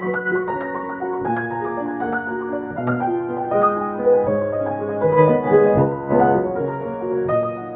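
Piano being practiced: chords and melody notes played at a moderate, even pace.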